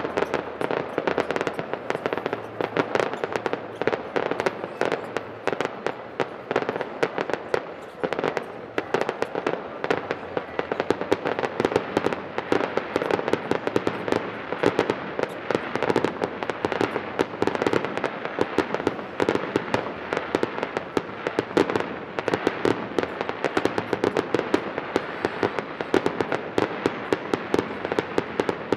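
Fireworks display: a dense, continuous barrage of bursting shells and crackling, with many sharp reports a second.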